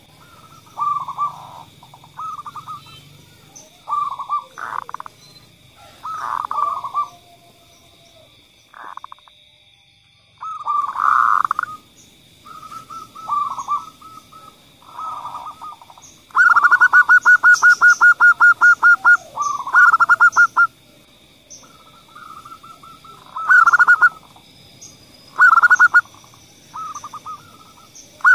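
Zebra doves (perkutut) calling: short cooing phrases every second or two, with a fast rattling run of notes lasting about two seconds a little past the middle.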